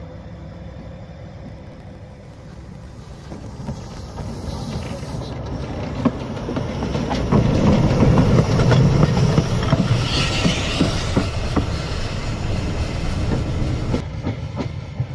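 Metre-gauge locomotive rolling slowly over the track, its wheels clicking and knocking over the rails. It grows louder from about four seconds in and is loudest as it passes overhead around eight to eleven seconds, with a brief hiss about ten seconds in.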